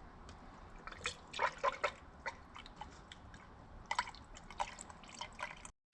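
Irregular small clicks and taps of a paint spray gun being handled and worked out, with a cluster of quick ones about a second in and another near four seconds, over a faint low hum.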